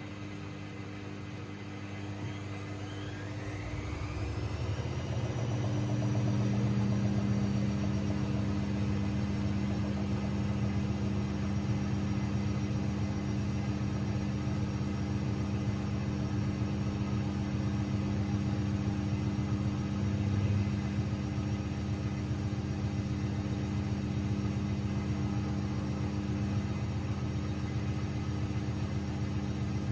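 AEG Lavamat 6610 washing machine speeding up into a spin: the motor's whine rises over about four seconds, then holds as a steady high-speed spin with a deep hum.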